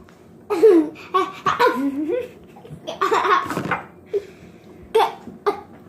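Children laughing in several short bursts, giggling between them.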